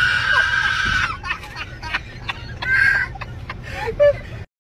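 A person's high-pitched scream held for over a second, then a second shorter scream, over the low steady hum of a vehicle's running engine, with a few short knocks. The sound cuts off abruptly near the end.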